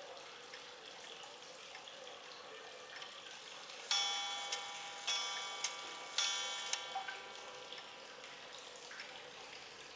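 Shima vintage wall clock striking three o'clock: three ringing strikes about a second apart, each followed by a short click of the striking mechanism. Faint ticking of the movement comes before the strikes.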